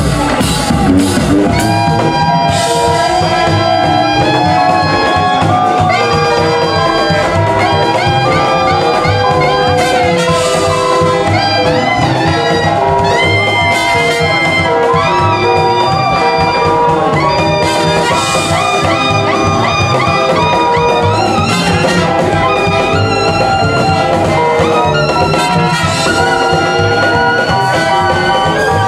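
Jazz played by a brass band, with trumpets, trombone and saxophone carrying the melody over a steady beat, loud and unbroken.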